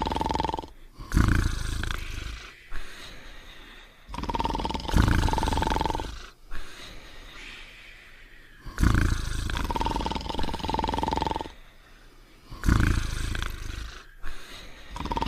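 Cartoon snoring sound effect: a loud low snore followed by a steady whistle, the cycle repeating about every four seconds.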